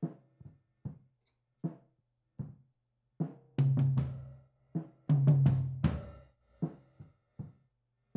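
Soloed drum tom track playing back, recorded acoustic toms layered with sampled toms triggered from MIDI. There are single low, ringing tom hits about every half second to second, then a busier, louder run of hits from about three and a half to six seconds in, some with a bright crack.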